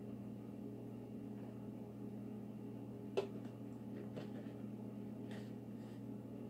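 Kitchen room tone: a low steady hum, with one light knock about three seconds in and a few fainter clicks of handling.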